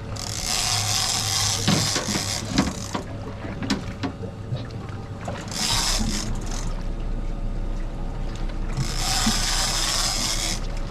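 Big-game fishing reel being cranked during a fish fight, its gears clicking, with three long bursts of loud rushing hiss.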